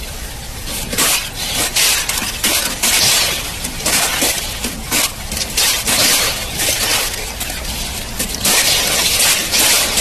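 Water pouring over the edge of a concrete weir and rushing down a channel: a steady splashing hiss with irregular crackling splashes.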